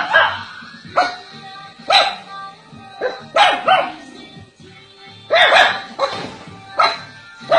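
A dog barking repeatedly, about once a second, with a quicker cluster of barks about halfway through, over background music.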